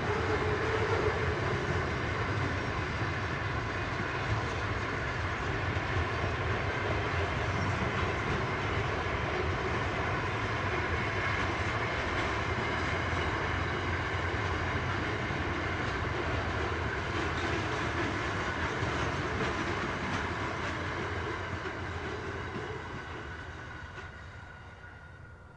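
Container wagons of a long freight train roll past, with a steady rumble of steel wheels on the rails. Over the last few seconds the noise fades away as the end of the train passes.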